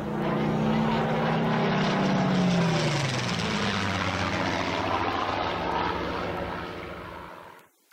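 Propeller aircraft flying past, its engine note swelling and then dropping in pitch as it goes by, before the sound cuts off suddenly near the end.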